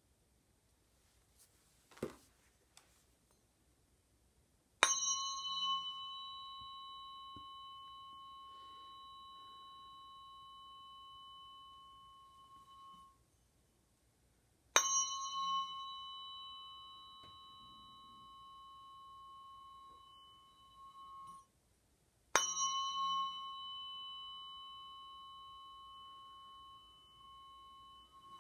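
A tuning fork struck three times, each strike ringing on for several seconds with high overtones, slowly fading, then stopped suddenly. A small knock comes shortly before the first strike.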